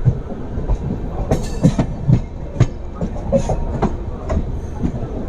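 Passenger train coach running along the track, heard from on board: a steady rumble with wheels clacking over rail joints about twice a second, and a short rush of hiss about a second and a half in.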